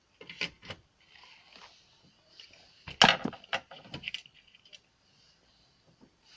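Handling noise at an electronics workbench: a run of sharp clicks and light clatter from small tools and parts being moved, loudest in a burst about three seconds in.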